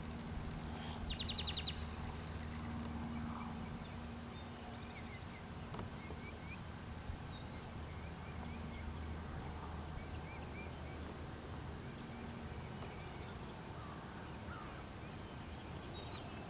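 Canada goose goslings giving soft, scattered short peeps as they graze, over a steady low hum.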